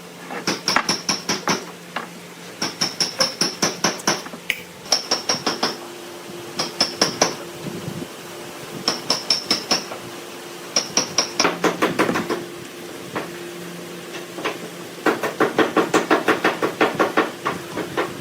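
Hammer blows on wood, struck quickly in short runs of several blows at about six a second, each with a metallic ring, pausing between runs. A low steady hum runs underneath.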